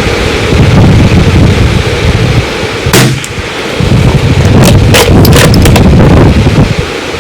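Strong wind buffeting the microphone, with a single shot from a .22 LR Bergara BMR bolt-action rifle about three seconds in, followed by several sharp clicks a second and a half later.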